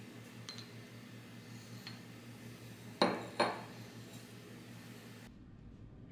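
Metal cooking utensils on a steel teppanyaki griddle: a few light taps, then two sharp, ringing metallic clinks about three seconds in, over a steady low hum.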